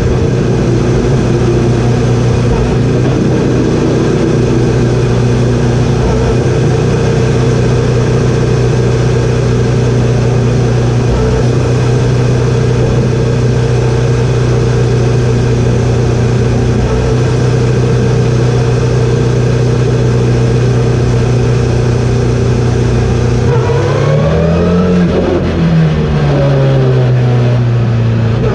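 KTM X-Bow GT4's turbocharged four-cylinder engine heard from inside the cockpit, holding one steady note at pit-lane speed, on the speed limiter. About 24 seconds in it revs up, and the note rises and drops with gear changes as the car accelerates.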